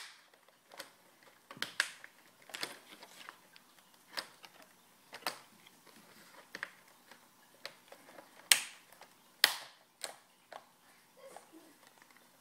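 Plastic screen bezel of a Samsung NP300E5A laptop being pried off with a plastic card: irregular sharp clicks and snaps as its clips pop loose a little at a time, the two loudest about eight and a half and nine and a half seconds in.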